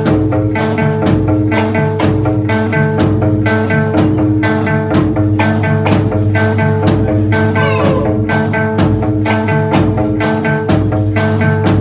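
Live rock band playing: electric guitar and drum kit over a held, droning chord, with drum hits falling on a steady beat.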